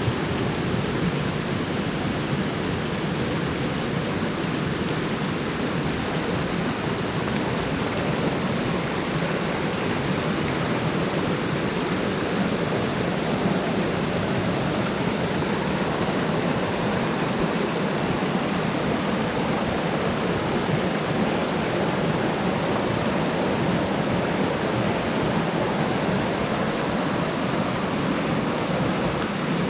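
Mountain stream rushing: a steady, unbroken water noise.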